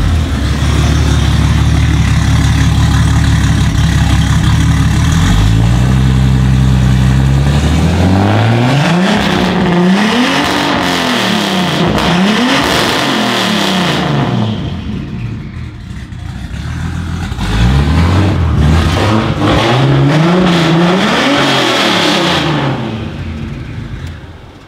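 Turbocharged BMW M30 straight-six in an E34, just started and running: a steady high idle for about five seconds, then climbing and being revved up and down again and again. It eases off briefly about two-thirds of the way through, revs up and down again, and falls away near the end.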